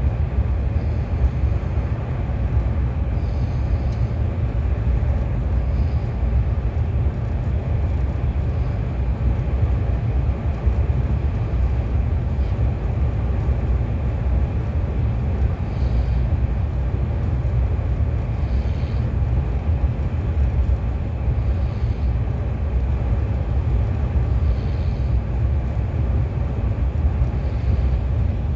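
Steady low rumble of a KTX high-speed train running at speed, heard from inside the passenger car.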